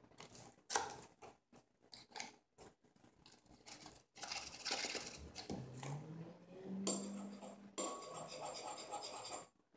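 A metal spoon scraping and clinking in a bowl while stirring the slime mixture, with a sharp knock about a second in and steadier scraping from about four seconds in.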